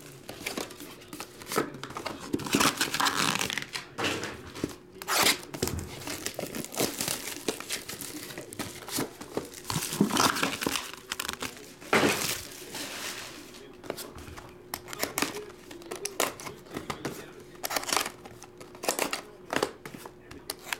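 Plastic wrapping crinkling and tearing as a sealed trading-card hobby box is opened, with sharp knocks and rustles of the cardboard mini-boxes being handled and set down.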